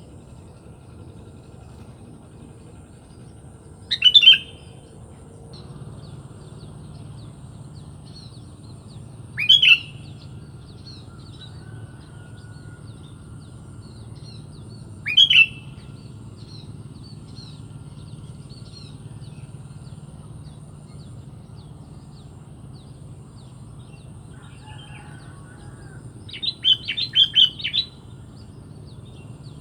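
Sooty-headed bulbul calling: three short, loud calls about five seconds apart, then a quick run of several notes near the end, with fainter chirping going on behind.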